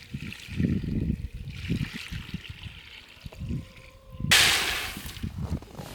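Footsteps crunching irregularly through snow. About four seconds in, a sudden loud rush of hissing noise lasts about a second and fades.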